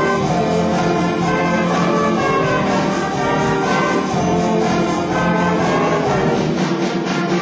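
Concert band of woodwinds and brass playing continuously, with the flute section among the sounding instruments.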